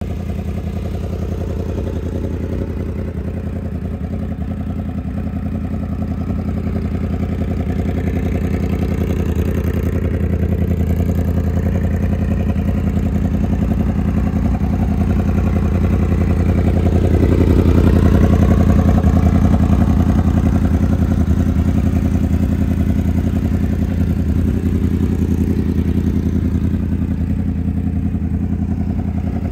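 2016 Yamaha YZF-R1's crossplane inline-four engine idling steadily through an aftermarket SC-Project exhaust. It grows louder toward the middle and then eases off again.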